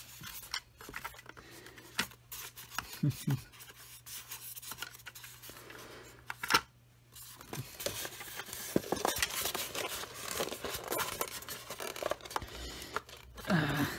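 Polystyrene foam packing insert and cardboard box being handled and worked loose by hand: irregular scraping and creaking of foam against card. A sharp click comes about six and a half seconds in, and the scraping grows busier from about eight seconds.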